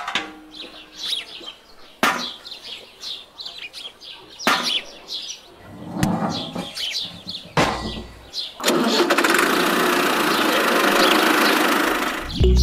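Small clicks and clinks as tiny metal buckets and a toy cement mixer are lifted off a toy trailer. From about nine seconds in, a steady motor noise as the miniature toy tractor runs and pulls away.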